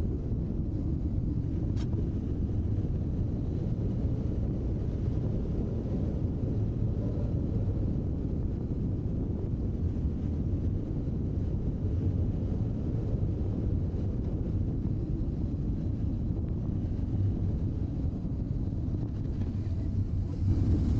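BMW R1200GS flat-twin motorcycle under way: a steady low engine rumble mixed with wind buffeting on the camera microphone, growing louder near the end.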